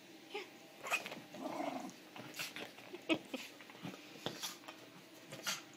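A West Highland white terrier puppy playing with a toy ball: brief low growls among scattered short taps and scuffs as she paws and noses the ball.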